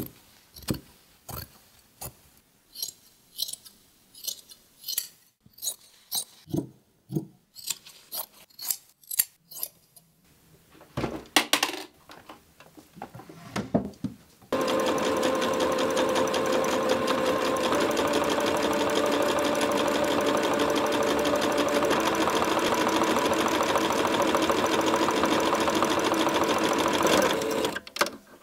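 Scissors snipping through cotton shirt fabric in a string of separate cuts. About halfway through, a Singer electric sewing machine starts and runs steadily for about thirteen seconds, stitching, then stops.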